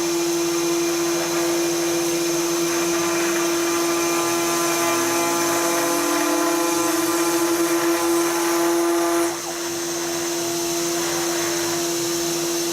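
Home-built CNC router running with a steady whine while milling wood. A second tone rises in pitch until it merges with the whine, then cuts off about nine seconds in with a brief dip in level, and the machine keeps running.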